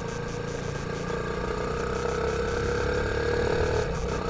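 Motorcycle engine running on the move, its pitch climbing slowly as it accelerates, then dipping briefly near the end before carrying on.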